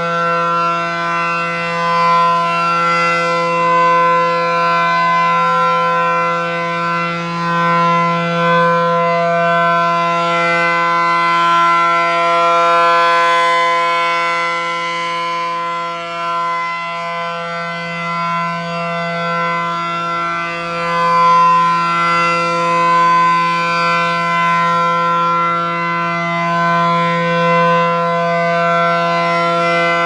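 ACA Allertor 125 rotating warning siren sounding a steady full-alert tone, holding one pitch throughout. Its loudness swells and dips every few seconds as the horn turns toward and away from the listener.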